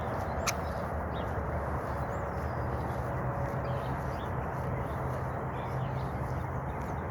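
Scattered short bird chirps over steady outdoor background noise with a low hum. There are a couple of sharp clicks near the start.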